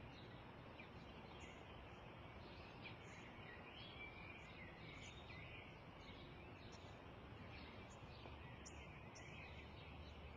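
Small birds chirping faintly over a low, steady background hiss, with many short high calls and a few warbling phrases.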